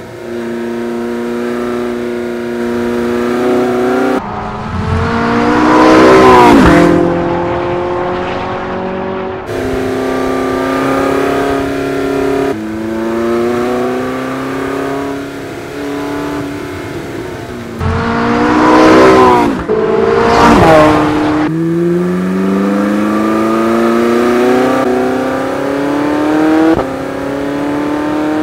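Porsche 918 Spyder's 4.6-litre V8 revving hard under acceleration, its note climbing through the gears with several upshifts. The car passes close by twice, about six seconds in and again around twenty seconds in; these are the loudest moments, with the pitch dropping sharply as it goes by.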